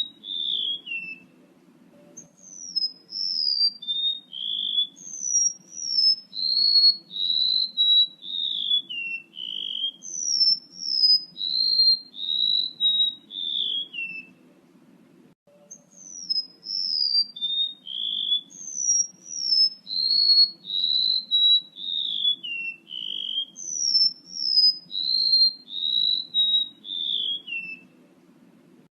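Lure recording of a male rementuk laut's call: a long run of clear, high whistled notes, each sliding down in pitch, in falling phrases. The run pauses for about a second halfway through and then repeats, over a faint steady low hum.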